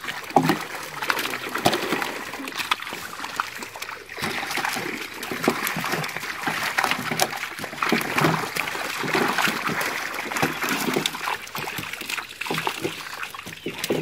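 Irregular splashing and dripping of water as live fish are picked by hand out of a fishing net in shallow water and dropped into plastic drums of water.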